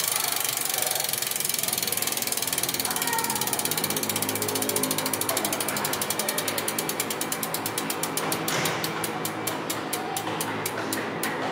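Shimano Dura-Ace FH-9000 rear freehub ratcheting as the wheel freewheels. It starts as a fast buzz of pawl clicks, which slow steadily as the wheel spins down, to a few clicks a second near the end.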